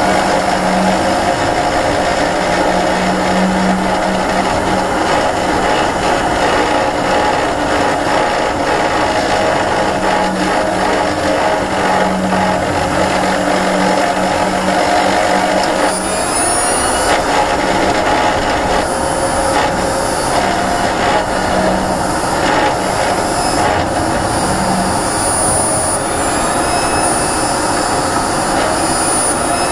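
Renault ZOE R240's reduction gear rattling as the car rolls in neutral, with the motor neither pulling nor braking, over steady road and drive noise. A thin high whine rises in pitch twice, about halfway through and near the end.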